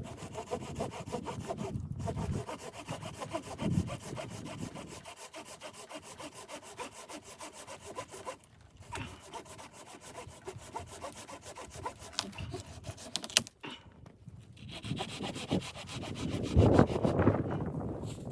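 Hand saw cutting through wood in quick, steady strokes, stopping briefly a few times.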